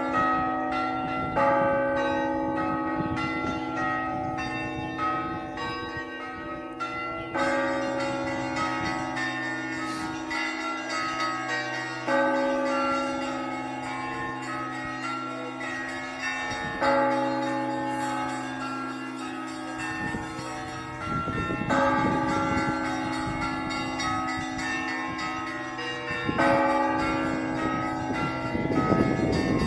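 Russian Orthodox church bell ringing (zvon): smaller bells chime in a quick pattern over the deep hum of the large bells, and a heavy bell is struck about every five seconds.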